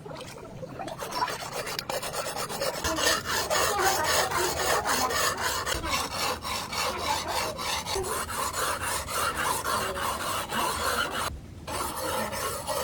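Hand abrading: quick back-and-forth rasping strokes in a steady rhythm, breaking off briefly near the end before resuming.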